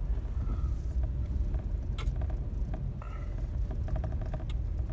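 Car engine idling, a steady low rumble heard from inside the cabin, with a few light clicks now and then.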